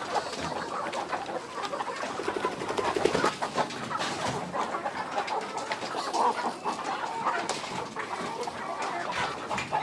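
A flock of chickens clucking, with many short calls overlapping without pause.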